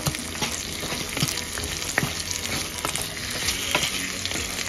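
Chicken curry gravy sizzling in a pan as a wooden spatula stirs it, a steady hiss with scattered sharp clicks and scrapes.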